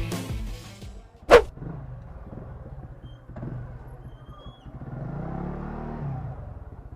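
Music fading out, then a single sharp knock about a second in, followed by a vehicle engine running at a low level, its pitch rising and falling in the second half.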